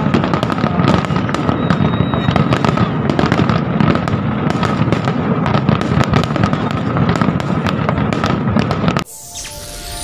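Many fireworks going off at once, a dense run of sharp bangs and crackles overlapping into a continuous din. About nine seconds in it cuts off abruptly and outro music begins.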